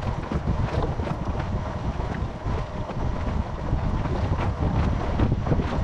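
Wind buffeting the microphone on a drifting boat: an uneven low rumble, with scattered light knocks.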